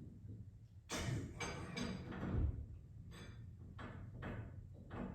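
Metal knocks and clinks of steel winding bars being worked in a garage door torsion spring's winding cone, as the spring is wound a quarter turn at a time. There is a sharp start about a second in, then a series of short knocks and a low thump.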